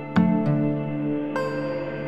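Ambient new-age music: layered, sustained tones, with a new note struck just after the start and higher tones coming in about halfway through.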